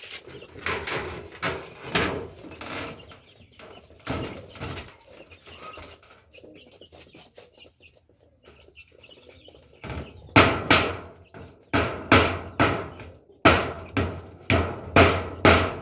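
Chickens clucking for the first several seconds. From about ten seconds in, a quick, regular run of loud, sharp knocks, like hammer blows, drowns them out.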